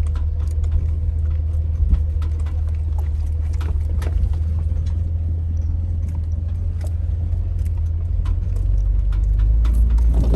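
Jeep driving on the road, heard from inside the cabin: a steady low drone of engine and road noise, with many small scattered clicks and taps over it. The drone drops lower in pitch about eight seconds in.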